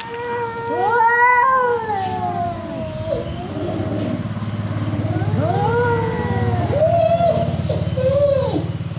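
Two cats yowling at each other in a fighting standoff: long, wavering caterwauls that rise and fall in pitch, sometimes overlapping. A low, pulsing growl runs underneath from about two seconds in.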